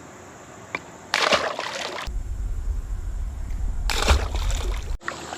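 Water splashing beside a canoe as a channel catfish is let back into the lake: a loud splash about a second in, a low rumble, and a second splash near the end.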